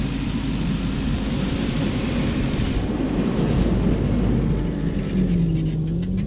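Nissan Navara NP300 ute driving past on soft beach sand, towing a boat trailer: a steady engine hum whose tone sits lower near the end as it goes by.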